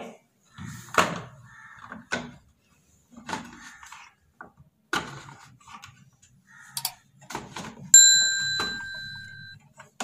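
Short plastic knocks, clicks and scrapes as the drain-pump filter cap of a front-load washing machine is pushed back into its housing and turned in by hand. About eight seconds in, a sharp metallic ding rings out and dies away over about a second and a half.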